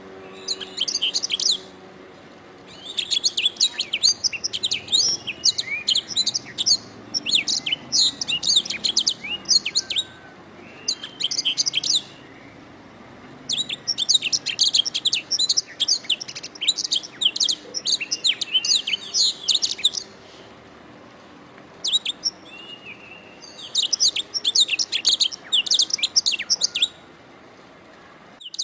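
Domestic canary singing: phrases of rapid, high trills and chirps, each a few seconds long, separated by short pauses.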